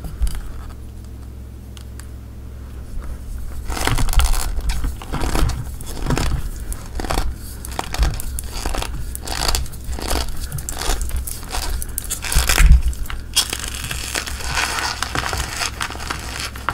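Bare hands squeezing and crushing a block of gym chalk coated in pink powder. From about four seconds in it crunches again and again, roughly two crunches a second, and softens to a crumbly powder rustle near the end.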